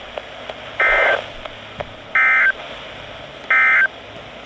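NOAA Weather Radio Emergency Alert System end-of-message data tones: three short bursts of warbling digital SAME tones, about 1.4 s apart, marking the end of the weekly test broadcast. A steady static hiss from the weather radio receiver runs between the bursts.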